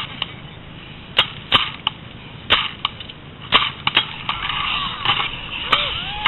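A run of sharp clicks and knocks, about ten over six seconds at uneven intervals, over a low rumble of handling noise.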